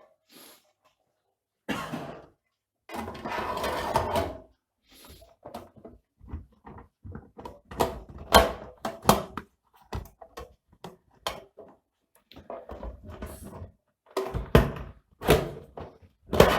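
The casing of a UPS being handled and its cover fitted back on: scraping about three seconds in, then a run of knocks and clicks, the loudest near the end.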